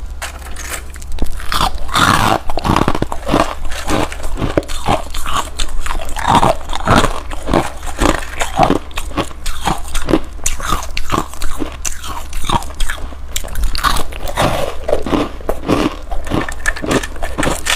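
Freezer frost crunching up close as it is bitten and chewed, in a quick, irregular run of crisp crunches, about two or three a second, over a steady low hum.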